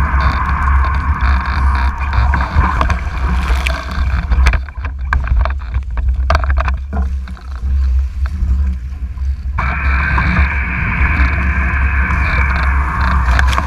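Wind rumbling on the camera and water rushing past a Mach 2 foiling Moth dinghy at speed. About four and a half seconds in, the rushing hiss drops away into splashing and knocks as the boat crashes down into the water. The hiss comes back suddenly just before ten seconds in, as the boat gets going again.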